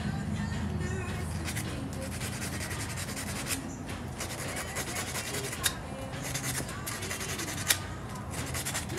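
Continuous rubbing and scraping of abrasive on metal as an engine poppet valve is cleaned and dressed, with a few sharper strokes now and then.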